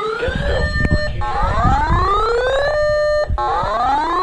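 Electronic siren sounding over the weather radio voice: a tone that rises, holds briefly, then cuts off and rises again about every two seconds, with a low rumble underneath.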